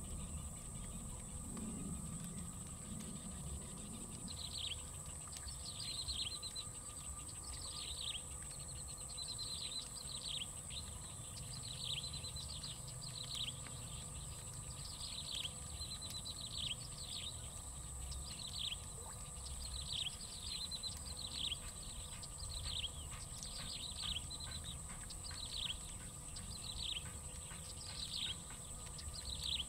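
A bird calling over and over, a short, high, falling note about once a second, starting about four seconds in. A steady high-pitched drone and a low rumble run underneath.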